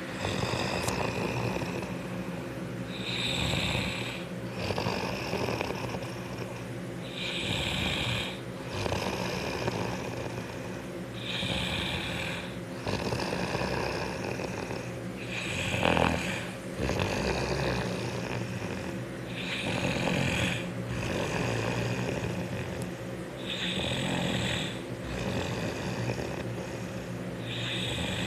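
A man snoring in his sleep, one snore about every four seconds in a regular cycle.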